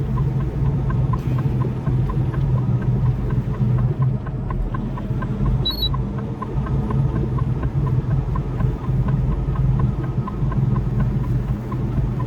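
Semi truck's engine and road noise inside the cab while driving, a steady low drone. A light, regular ticking runs through it at about two to three ticks a second.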